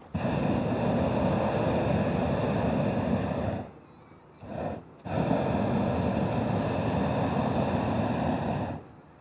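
Hot-air balloon's propane burner firing in long blasts, heating the air in the envelope: a blast of about three and a half seconds, a short half-second burst, then another blast of about three and a half seconds, each starting and stopping sharply.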